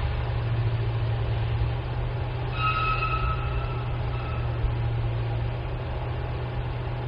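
A steady low grinding rumble, like stones being dug up and ground, with an annoying high squeak about two and a half seconds in that lasts under two seconds. Its source is unidentified.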